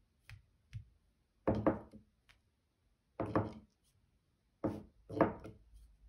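A wooden twig loaded with ink is knocked against paper on a table to splatter ink. There are a couple of light taps, then four solid knocks, the last two close together.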